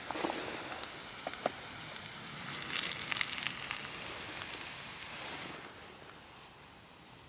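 Burgers sizzling in a frying pan on a wood gas stove, with sharp crackles of the wood fire. The sizzle swells about three seconds in and fades near the end.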